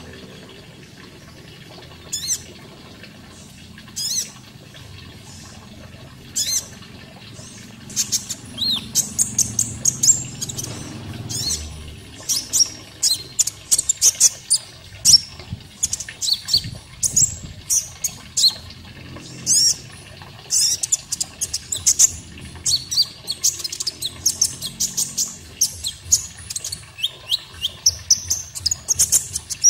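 Konin songbird calling: short, sharp high chirps and quick falling whistled notes, a few spaced calls at first, then a rapid, dense string of them from about eight seconds in, over a steady background of water.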